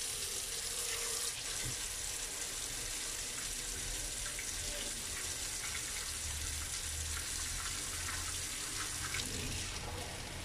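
Kitchen faucet running a steady stream of water into a plastic colander in a stainless steel sink, a constant hissing splash that starts suddenly as the tap is turned on.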